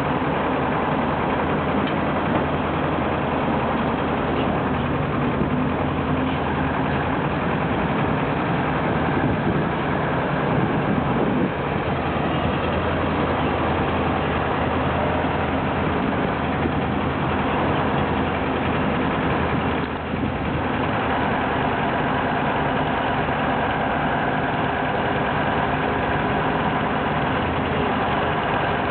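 Heavy diesel engine of Soviet construction machinery running steadily at low speed, with a brief dip about twenty seconds in.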